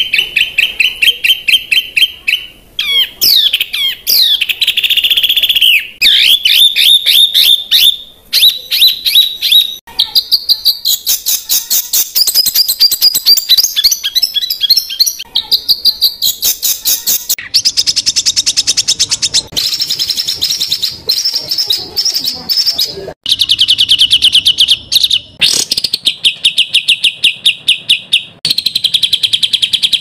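Songbird singing fast, dense, harsh trills and rapid-fire repeated notes, the 'tembakan rapat dan kasar' runs that Indonesian bird keepers call jrojos. The song comes in phrases of one to a few seconds, each a different rattling trill or run of quick rising notes, with short breaks between them.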